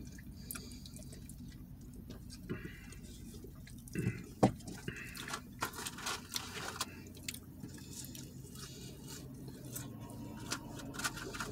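Small sounds of eating in a car cabin: scattered clicks and rustles of food and a soda cup with a straw being handled, over a low steady cabin hum. A few sharper clicks come around the middle.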